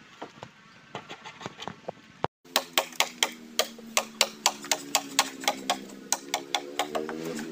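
Bolo knife blade chopping at a bamboo pole in rapid, evenly spaced knocks, about five a second, starting after a brief dropout about two seconds in, over a steady low hum. Before that, faint light tapping on bamboo.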